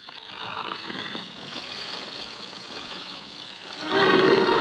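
Low, rattling alligator sounds between roars. They swell near the end as the next loud roar begins.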